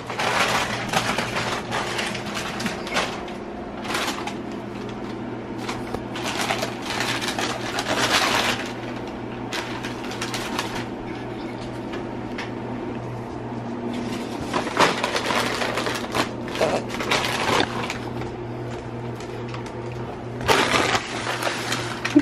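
Brown paper bag crinkling and rustling in irregular bursts, some short and some lasting a second or more, as a cat pounces on it and burrows inside, over a steady low hum.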